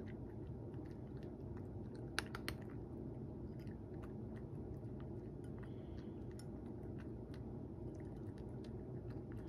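A cat eating dry kibble, chewing and crunching steadily with many small clicks, and a few sharper clicks about two seconds in.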